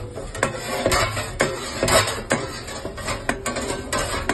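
Background music with a steady, punchy beat, about two beats a second.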